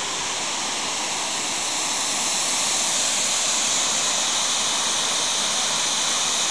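Water pouring over a dam spillway and rushing down the creek below: a steady hiss of falling water that grows a little louder about two seconds in.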